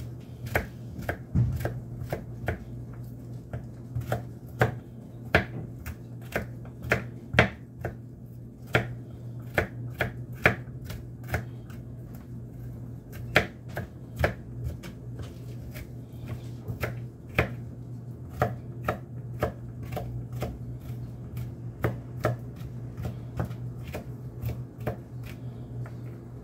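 A chef's knife chopping garlic cloves on a plastic cutting board: a run of sharp, irregular knocks, about two a second, as the blade strikes the board. A steady low hum runs underneath.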